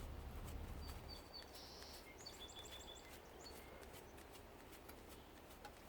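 Faint outdoor background with a small bird chirping: a few short high calls and a quick run of about five chirps around two seconds in, over a low rumble that fades after the first second.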